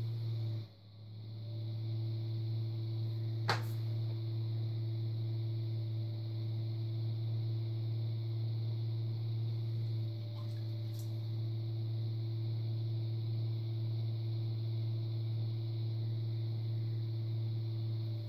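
Electric pottery wheel running with a steady low hum, which drops out briefly about a second in and builds back up. A single sharp click a few seconds in.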